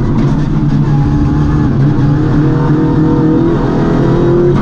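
MINI rally car's engine heard from inside the cabin, pulling hard under acceleration with the revs climbing steadily, over tyre and road noise.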